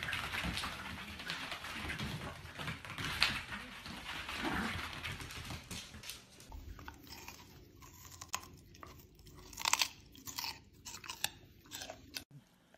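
Two dachshunds scuffling in play: scrabbling paws and crunchy, chewing-like noises, dense for the first half. After that come scattered sharp clicks and knocks.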